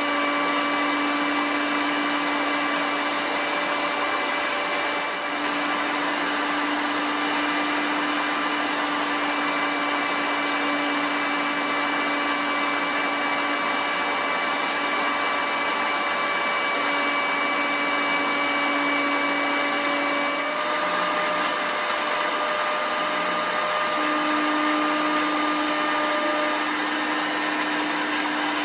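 EveryGrow electric mill grinder running loud and steady with a motor whine while it grinds worm-feed ingredients poured into its hopper; the whine wavers and shifts slightly in pitch about three-quarters of the way through.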